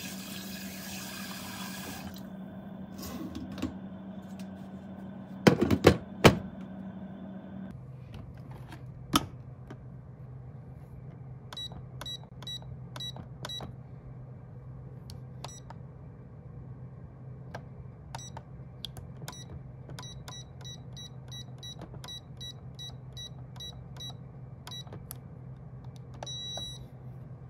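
A run of short, high electronic beeps, at times two or three a second, like button presses on a keypad, over a steady low hum. A few sharp knocks come about five to six seconds in and are the loudest sounds.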